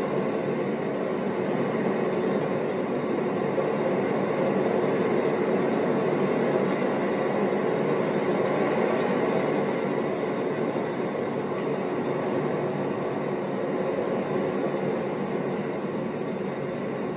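A steady, even rushing noise with no clear pitch.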